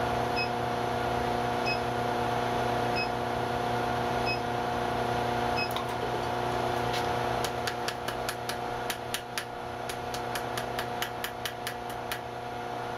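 Induction heater humming steadily, with a short faint beep about every second and a third while the piece heats. From about seven and a half seconds in, a light ball-peen hammer taps rapidly on the red-hot wheat-twist wire against the anvil, about four light blows a second, forge-welding it onto the stem.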